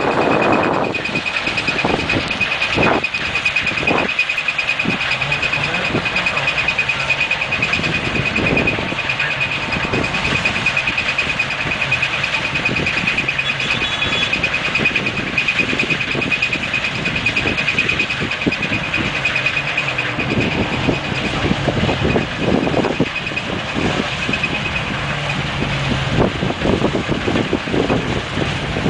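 Laverda M306 combine harvester running as it cuts standing wheat, a steady machine noise with a constant high whine over it.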